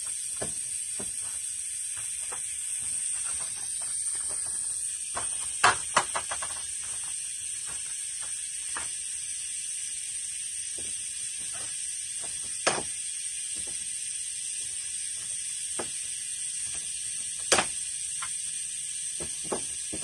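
Old nails being pulled from a wooden garage door jamb with a hand nail puller: sharp metallic clicks and snaps at irregular intervals, loudest as a quick cluster of three about six seconds in and as single snaps near the middle and near the end, over a steady high hiss.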